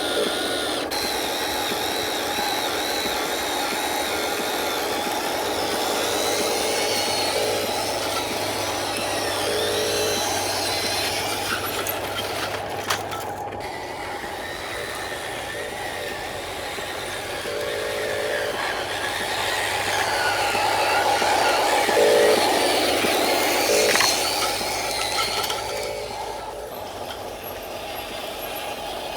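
Radio-controlled model truck driving, its small electric motor and gearbox whining with a pitch that wavers up and down as the speed changes.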